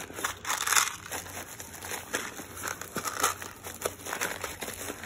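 Plastic bags of small parts crinkling and rustling as they are pushed back into a tool bag pocket, with scattered small clicks. The crinkling is loudest about three-quarters of a second in.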